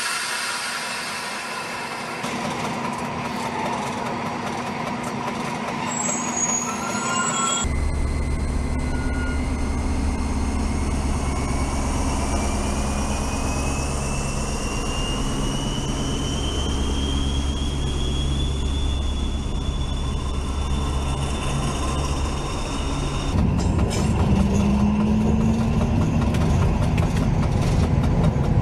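Train running sounds in three abruptly joined sections: a steady rumble with noise, and in the middle stretch a whine that slowly rises in pitch as the train gathers speed.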